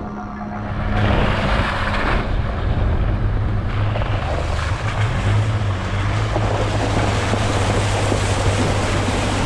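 A vehicle driving through floodwater on a muddy dirt road: the wheels churn and spray water in a steady rush, with the engine running low underneath and wind noise on the outside-mounted camera. It starts about a second in.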